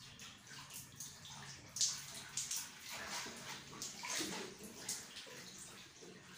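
Water splashing and a sponge scrubbing in a ceramic hand basin: irregular swishes and splashes, the loudest about two seconds in.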